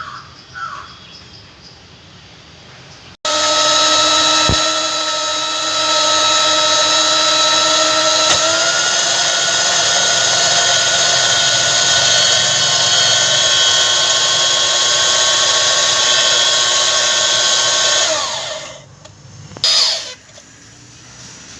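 An electric power tool's motor running at a steady speed with a high whine. It starts abruptly a few seconds in, rises slightly in pitch about eight seconds in, and winds down near the end.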